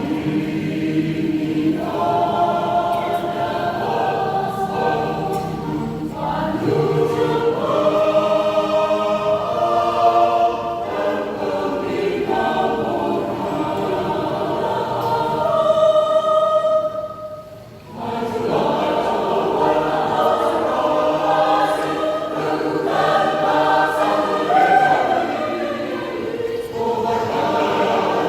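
Church choir singing a hymn in parts, several voices together, with a brief pause between phrases about two-thirds of the way through.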